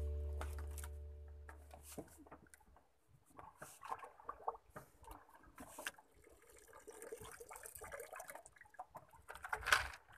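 Background music fading out over the first two seconds, then faint water splashing and lapping with small scattered knocks and clicks, and a sharper splash or knock near the end.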